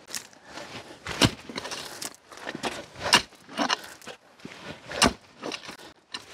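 Digging by hand into the ground: a digging tool strikes in three sharp blows about two seconds apart, with gritty scraping and crunching of soil between them.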